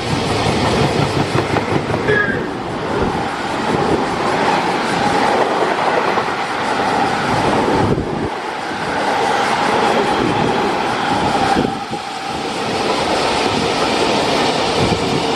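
Freight train hauled by an EF210 electric locomotive passing through a station at speed: steady rolling noise of the wagons' wheels with clickety-clack over the rail joints.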